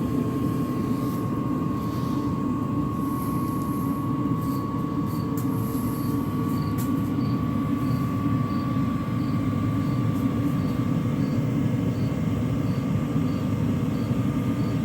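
LF Bros N2 diesel air heater running as it is turned up to full speed: a steady blower and burner rush with a fan whine that creeps slowly higher as it keeps gaining speed. A faint regular tick, the fuel pump, comes through from about a third of the way in.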